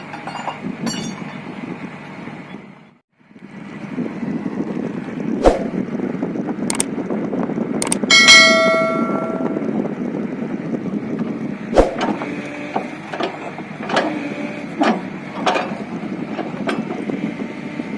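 Komatsu PC210 excavator's diesel engine running steadily, with a series of steel-on-steel knocks and one loud ringing clang about eight seconds in. The sound drops out briefly about three seconds in.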